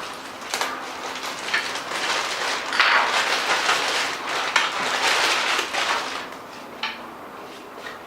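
Rustling with a few light knocks, as table parts and packaging are handled.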